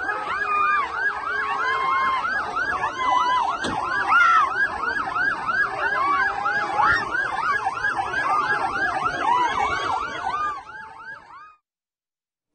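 Several sirens yelping together over crowd noise, overlapping rapid rising-and-falling wails about three a second, fading out and stopping about eleven seconds in.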